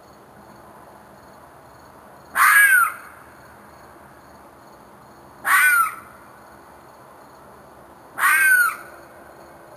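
An unidentified animal's screeching scream, given three times about every three seconds, each call short with a pitch that arches and falls away at the end.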